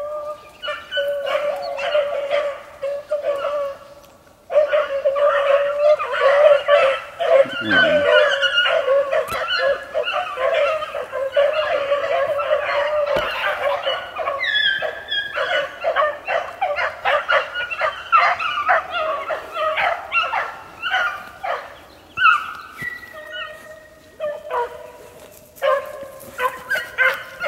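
A pack of young beagles in full cry, many overlapping voices baying as they run a rabbit's scent. The cry drops off briefly about four seconds in, comes back louder, and thins into scattered calls near the end.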